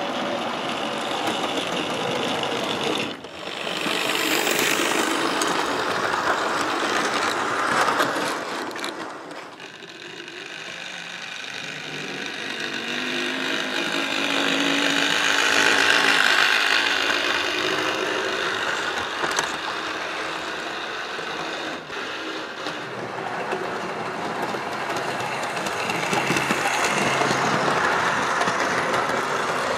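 Model railway train running on the track: the locomotive's small electric motor whirring and its wheels rattling over the rail joints. The noise swells as the train nears, loudest about halfway through, and again near the end as the coaches pass close by.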